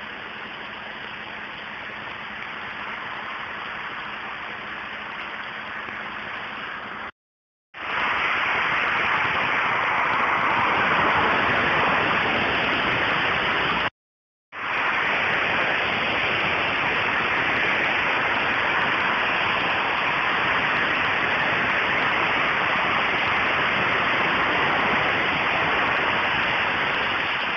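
Steady, loud hiss like static, with no clear engine or siren in it, cutting to silence twice for about half a second.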